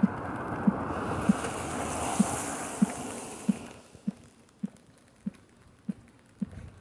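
Footsteps on a wet asphalt path at a steady walking pace, about eleven steps. A hissing rush runs underneath and dies away about four seconds in.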